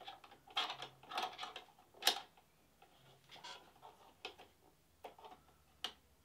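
Small metal and plastic clicks and rattles as a sewing machine's hook is fitted back into its housing behind the hook door, with the loudest click about two seconds in.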